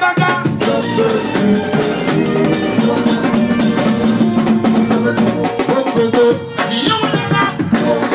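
Loud music with a steady drum beat, played over a nightclub's sound system and picked up by a phone's microphone, which leaves little deep bass.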